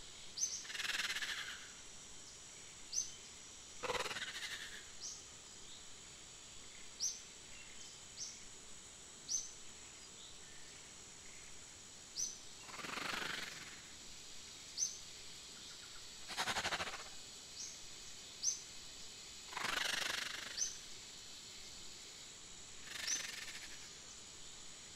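Short, high, bird-like chirps repeating every second or two. Every few seconds a louder noisy swell, like a rustle or swish, lasts about a second.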